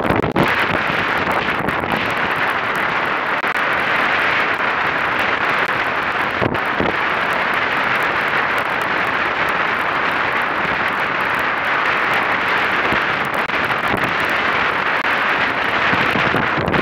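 Steady rush of wind and water over an A-class catamaran's hull and the deck-mounted action camera while sailing at about 11–12 knots, with a light knock about six and a half seconds in.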